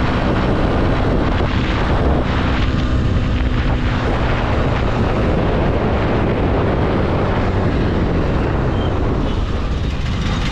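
Bajaj Pulsar NS single-cylinder motorcycle engine running on the road, with heavy wind rushing over the microphone. The engine's note is clear for about the first five seconds, then gets buried under the wind.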